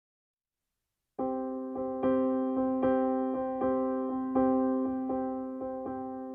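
Background music: a simple electric-piano melody begins about a second in after dead silence, with each note struck and fading.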